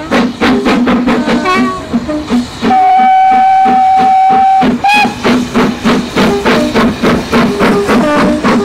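Background music with a steady beat, over which a steam locomotive's whistle sounds one long blast of about two seconds and then a short toot.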